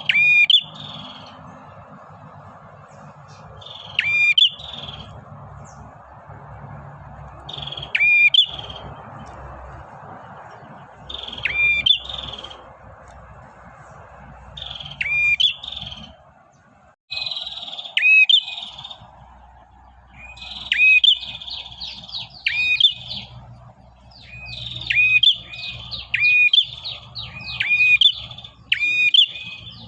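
Male prenjak (a small prinia-type warbler) calling repeatedly: short, sharp chirping phrases with quick upward sweeps, used as a lure to draw in small birds. The calls come about every four seconds at first, then quicken to about one a second past the middle.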